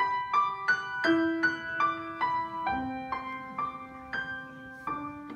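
Grand piano playing a solo introduction: a run of single struck notes about two to three a second over a held low note, slowing and spacing out near the end.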